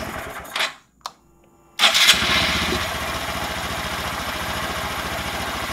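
Freshly rebuilt Honda Grom 125cc single-cylinder four-stroke engine shut off within the first second. There is a single click in the near silence. The engine is restarted just before two seconds in with a short loud burst, then settles into a steady idle.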